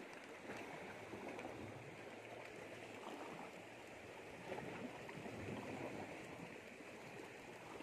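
Shallow seawater lapping and washing over a reef flat, a soft, steady rushing.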